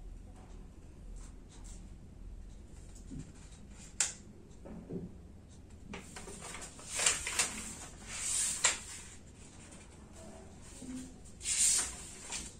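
Low room tone with a sharp click about four seconds in, then several short rustling, brushing noises in the second half, like paper or hands being moved close to the microphone.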